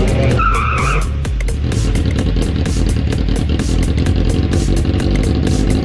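Engines of a drag kart and a car running at the start line of a drag strip, mixed with background music that has a steady beat.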